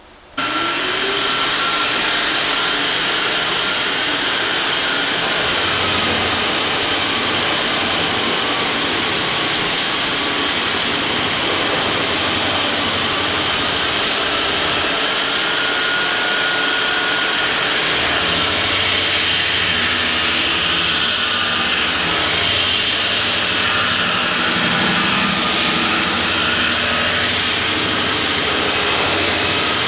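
A shop dust extractor and the hand-held power tool connected to it by its hose switch on about half a second in, spinning up, then run steadily as he trims the base of a wooden fireplace mantle to its scribe line.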